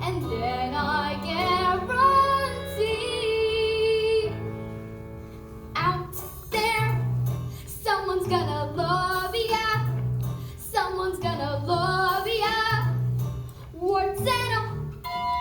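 A child singing a musical-theatre song with vibrato over instrumental accompaniment and a steady bass line. She holds a long note about three seconds in, the voice drops out briefly while the accompaniment carries on, and the singing resumes about six seconds in.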